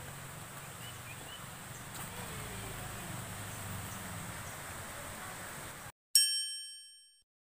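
Outdoor background noise, then the sound cuts out and a bright chime rings once, its several ringing tones fading over about a second: the sting of an animated YouTube-logo outro.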